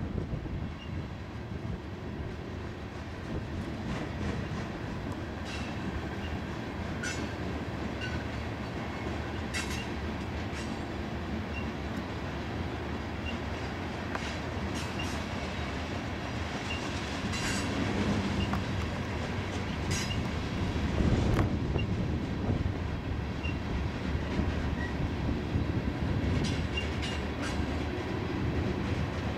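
Loaded coal hopper cars rolling past on steel rails: a steady rumble of wheels on track, broken by scattered sharp clicks and clanks.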